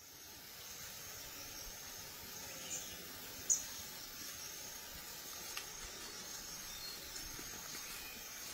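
Forest ambience: a steady hiss with faint high-pitched insect calls and a few short high chirps, the loudest about three and a half seconds in.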